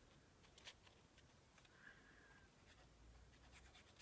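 Near silence, with faint soft ticks and rustles of paper being handled.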